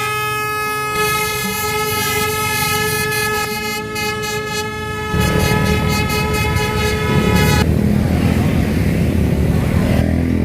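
A horn sounding one long, steady blast that cuts off a little over seven seconds in. From about five seconds in, a low rumbling noise joins it and carries on.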